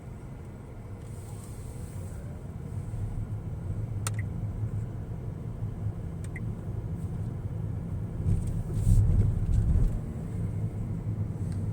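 Engine and road rumble of a moving car heard from inside the cabin, growing gradually louder, with a couple of faint clicks.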